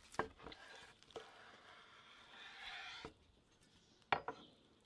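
Large knife slicing through the crusty bark of a smoked beef brisket on a wooden cutting board. A few light taps, a steady scraping cut lasting about three seconds, then two sharp knocks on the board a little after four seconds in.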